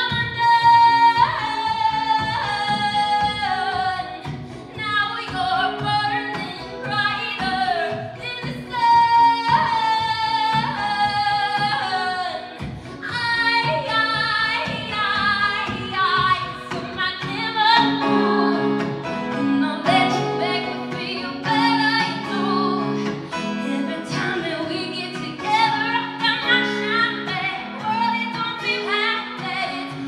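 A woman singing an indie pop song while playing an acoustic guitar, holding long notes near the start and again about nine seconds in.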